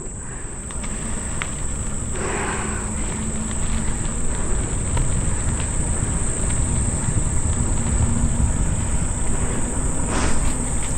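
A steady high-pitched chorus of insects droning without a break, over a loud, even low rumble.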